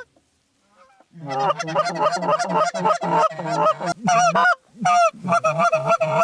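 A flock of geese honking, many calls overlapping in quick succession; the calling starts about a second in after a brief silence.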